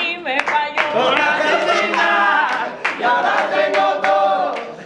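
A small group of voices singing together without instruments, holding long notes in unison.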